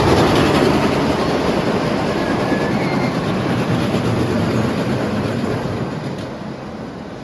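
A roller coaster train rumbling along its track with faint wheel squeal. It is loudest at the start and fades steadily as it moves away.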